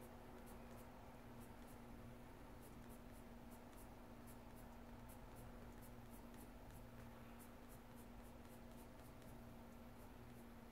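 Faint scratching of a colored pencil shading on sketchbook paper: quick short strokes, a few each second, over a steady low hum.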